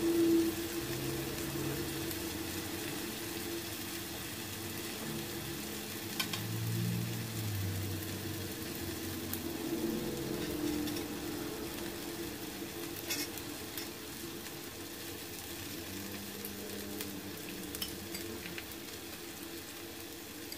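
Sliced beef, onions and mushrooms sizzling steadily on a hot grill pan, with a few light clicks of chopsticks and utensils.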